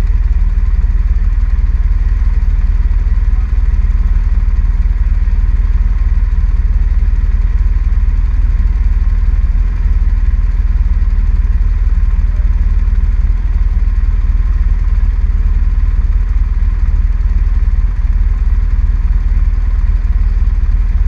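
ATV engine idling steadily close to the microphone, a low, even rumble that does not change.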